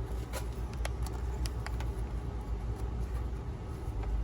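A few light clicks and taps of hands working the RPM limiter and its wiring loose, over a steady low rumble.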